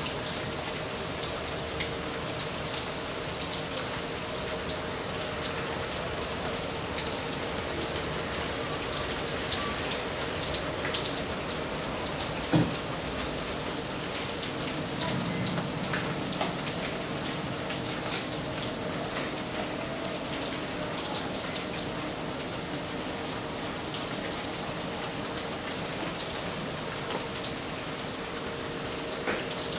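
Steady rain falling on garden foliage and pavement, with many separate drops tapping close by. A faint steady hum runs underneath, and a single sharp knock comes a little before halfway.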